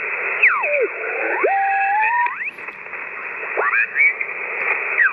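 HF amateur radio transceiver's speaker giving band hiss in a narrow voice-width band, with whistling tones that sweep down and up in pitch as the tuning knob is turned across signals. A long whistle falls and then climbs in the first couple of seconds, and shorter sweeps come near the end.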